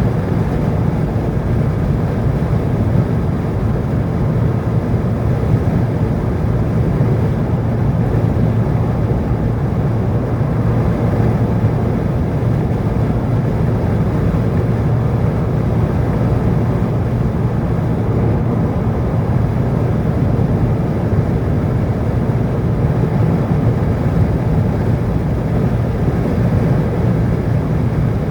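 Steady low rumble of a vehicle driving along a road, engine and tyre noise, constant throughout with no change in speed.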